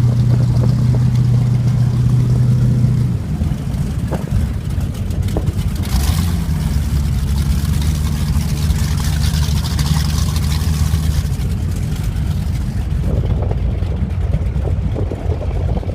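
A 28-foot Pantera powerboat's engine running at steady speed. About three seconds in its note drops lower and quieter, as if throttled back, and then holds steady, with the rush of wind and water.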